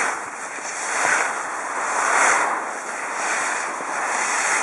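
Skis sliding and scraping over packed snow, a steady hiss that swells and eases about once a second.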